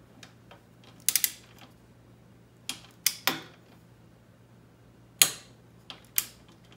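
A click-type torque wrench being worked on a bolt: sharp metallic ratchet clicks, single and in quick pairs, every second or two, as the bolt is tightened to its 22 ft-lb torque spec.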